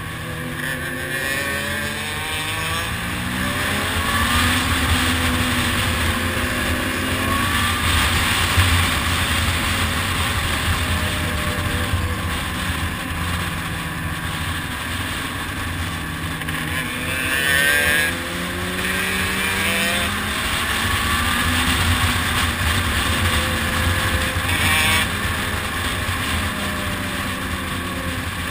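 Motorcycle engines running at road speed, their pitch rising and falling as the riders open and close the throttle through the bends, over a steady rush of wind and road noise.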